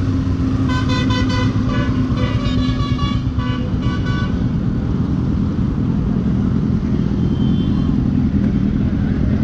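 Motorcycle engine running steadily, with a quick run of short horn beeps for about three seconds near the start.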